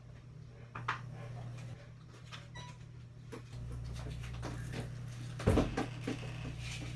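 Steady low hum that deepens about three and a half seconds in, with scattered clicks and knocks; the loudest is a knock about five and a half seconds in.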